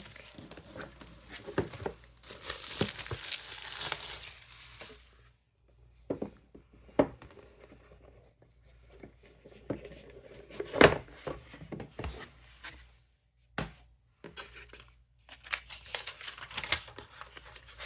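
Plastic wrapping being torn and crinkled off a clipboard folio, in bursts at the start and again near the end, with scattered sharp clicks and taps in between.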